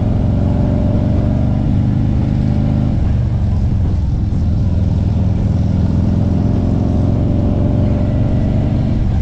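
Harley-Davidson Street Glide's V-twin engine running steadily while the motorcycle cruises along the road.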